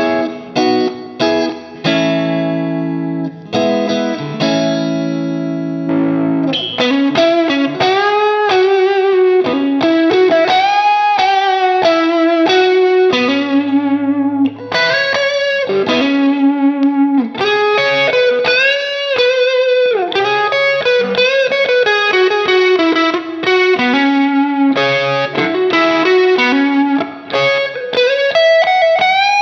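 PRS Silver Sky electric guitar played through a Marshall Silver Jubilee amp and 4x12 cabinet. It opens with a few sustained, ringing chords, then about six seconds in moves to a single-note lead line with string bends and vibrato.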